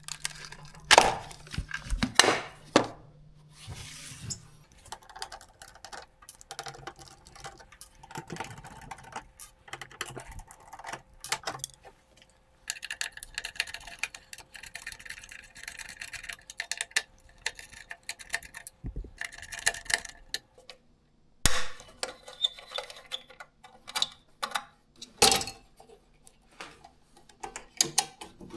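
Clicks, knocks and small rattles of hands at work: a red industrial power plug pulled from its wall socket, then a screwdriver loosening wires at a projector's power terminal block. A faint steady hum runs underneath at times.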